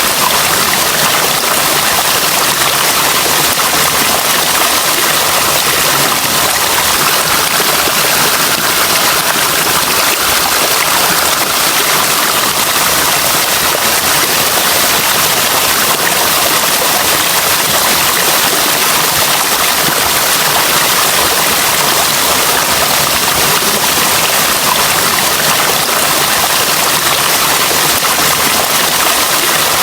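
Running water, like a stream or small cascade, making a steady, even rushing hiss that does not change.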